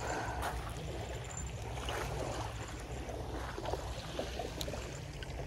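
Small waves washing on a sandy shore, with wind rumbling on the microphone.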